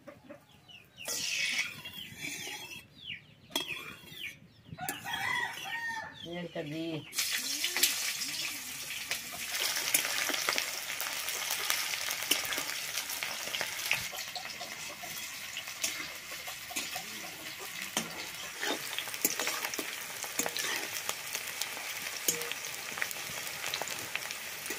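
Chickens calling for the first several seconds. About seven seconds in, sliced onions go into hot oil in an iron kadai and fry with a steady sizzle, while the metal spatula clicks and scrapes against the pan as they are stirred.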